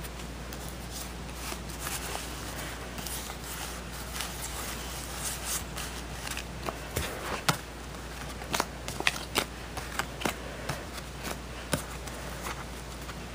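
Playing cards being gathered, shuffled and dealt back down by hand onto carpet: irregular soft clicks and rustling, with a few sharper snaps.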